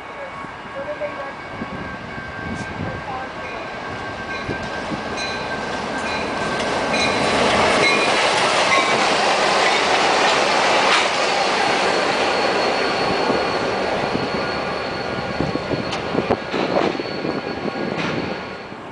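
BNSF diesel freight locomotives approaching and passing close by at track speed, growing louder to a peak about eight to twelve seconds in, followed by freight cars rolling past with wheel clatter and knocks and a steady high squeal.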